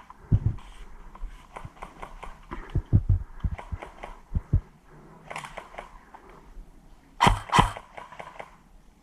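Airsoft player on the move: a run of dull thumps and rustles from gear and footsteps, then two sharp cracks about a third of a second apart a little past seven seconds in, an airsoft gun firing a double shot.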